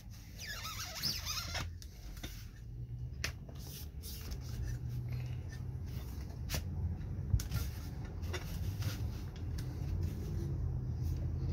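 Lexan window pane being worked into a rubber gasket in a Humvee door window frame: scattered scrapes, rubs and light knocks, with a low steady hum underneath.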